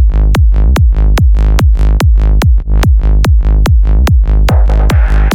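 Electronic dance track: a steady kick drum a little over twice a second over a held bass line, with short ticks between the kicks. About four and a half seconds in, a noisy synth layer comes in on top.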